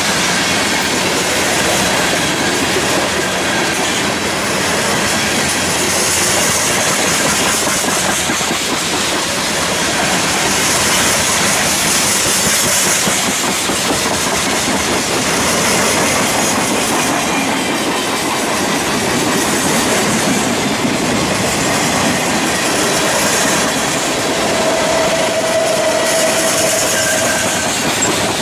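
Freight train's covered hopper cars rolling past close by: a steady rumble and clatter of steel wheels over the rails. A short steady squeal shows near the end.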